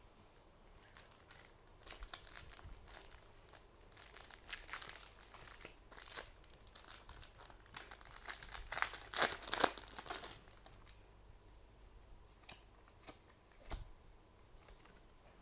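Booster pack wrapper crinkling and being torn open, a run of crackles that grows loudest about two-thirds of the way through. A single soft thump near the end.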